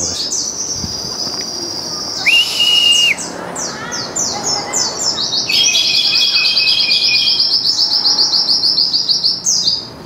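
Caged songbird singing a dense, high-pitched stream of quick chirps, with one held whistled note about two seconds in and fast trilling through the second half.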